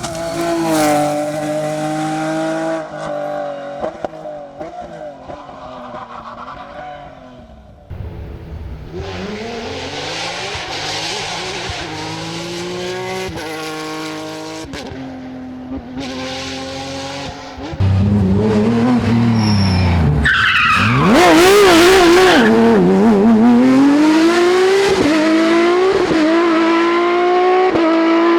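Porsche rally cars at full throttle, several in turn. The engines rev high, drop through gear changes and climb again, and the loudest passage comes in the last ten seconds.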